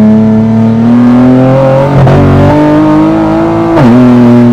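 Infiniti Q60's twin-turbo V6 under hard acceleration, the revs climbing steadily and falling sharply at two quick upshifts, about two seconds in and again near the end.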